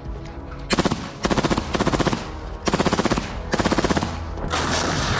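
Automatic weapon fire in several short, rapid bursts. Near the end a steady rushing noise takes over.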